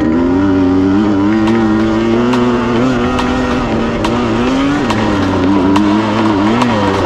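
Dirt bike engine running while being ridden, its pitch rising and falling with the throttle.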